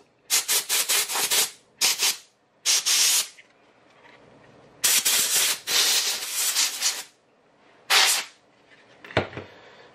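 Can of compressed air sprayed in a series of hissing blasts to blow dust off a gauge housing: a quick run of short puffs at first, two more short blasts, a longer blast of about two seconds in the middle, and one last short puff near the end.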